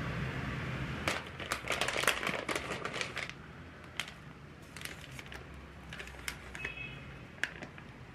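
Plastic food pouches of kimchi pancake mix crinkling and rustling as they are handled. There is a dense flurry of crinkles from about one to three seconds in, then scattered crinkles and clicks.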